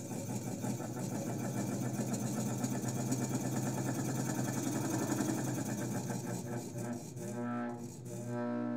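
Diaphragm pump of a Navy air supply unit being run, its diaphragm centre working in and out, making a steady mechanical running sound with a fast, even rhythm. The sound changes and dips briefly near the end.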